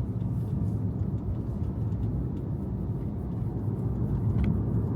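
Steady low road rumble inside a moving Tesla's cabin; the electric car makes no engine sound, so what is heard is tyre and road noise with passing traffic.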